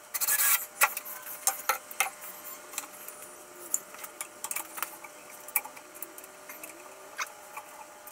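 Handling sounds while a light bracket is fitted: a short rasping burst near the start, then scattered sharp clicks and taps of a cordless drill and small hardware being picked up, set down and positioned by hand.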